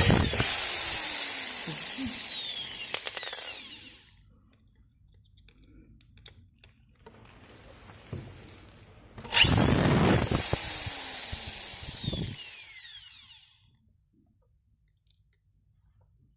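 Electric drill driving self-drilling screws into a metal plate in two runs of about four seconds each, the first right at the start and the second about nine seconds in, its whine falling in pitch through each run.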